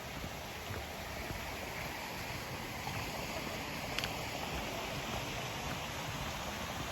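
Steady rushing noise, with a faint click about four seconds in.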